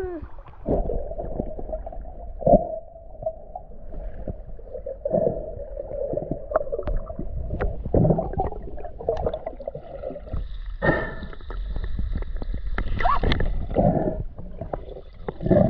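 Muffled water sloshing and gurgling from swimming, with many irregular knocks.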